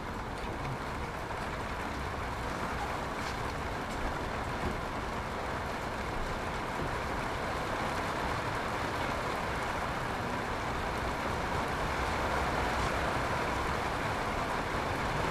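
Steady heavy rain falling, a continuous even hiss that grows a little louder toward the end, with a few faint clicks of hand tools on the distributor.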